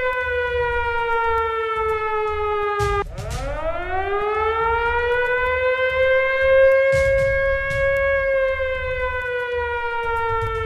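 Siren wailing with its pitch sliding slowly down. About three seconds in it dips sharply and winds back up, holds, then slides down again. Deep rumbles come and go underneath, with a couple of sharp hits.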